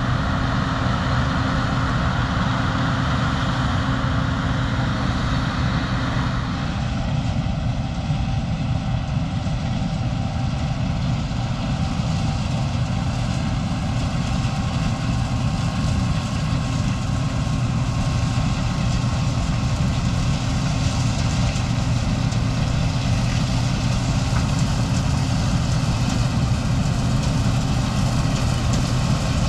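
Heavy vehicle engine idling with a steady low hum. About seven seconds in, a higher hiss drops away while the idle carries on.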